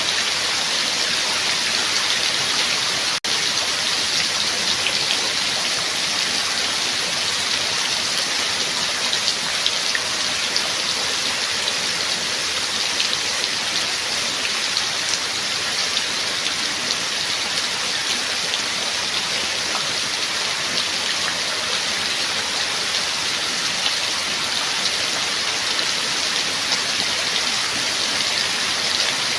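Steady heavy rain, an even dense hiss of falling drops, broken by a split-second gap about three seconds in.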